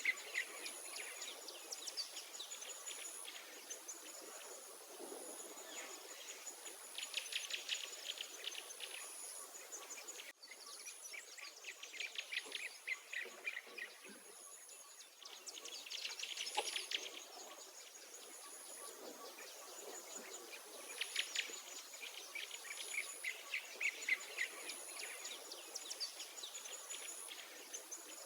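Outdoor birdsong: songbirds singing fast trilled phrases every few seconds over a high, thin insect buzz that pulses on and off steadily. The sound drops out for an instant about ten seconds in.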